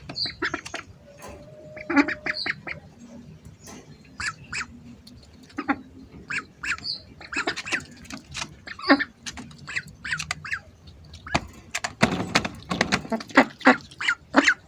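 Hungry ducks quacking and squawking in many short calls, busiest in the last few seconds.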